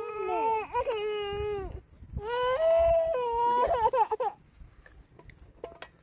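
A toddler crying: two long wailing cries of about two seconds each, each falling in pitch at its end, followed by a few faint clicks near the end.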